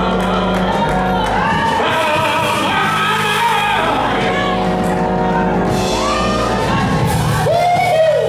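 Gospel music: singing voices gliding over held low instrumental notes, with some shouting from the congregation.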